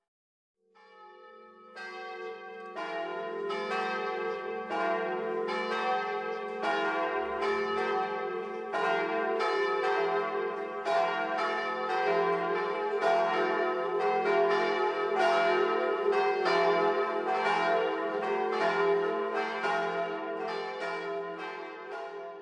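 Church bells ringing a peal: overlapping strikes about two or three a second over a lingering hum. The peal swells in after a brief silence and starts to fade near the end.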